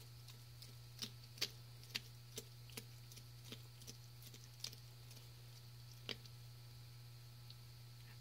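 Tegu eating egg and salmon: irregular sharp clicks of its jaws biting and chewing, fairly frequent over the first five seconds and only a couple after, over a steady low hum.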